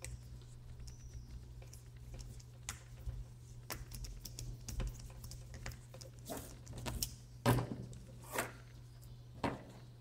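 Screwdriver driving a small screw into the plastic cover of an inline cord power switch: scattered clicks and scrapes of the bit and of the housing being handled, the loudest few near the end. A steady low hum runs underneath.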